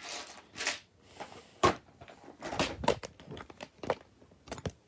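Small plastic and paper desk items being handled and moved about: rustling, with several short, sharp clacks as things are picked up and set down.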